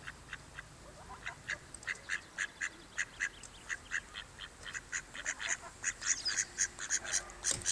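Mallard ducklings peeping: a run of short, high-pitched calls that come faster and louder in the second half.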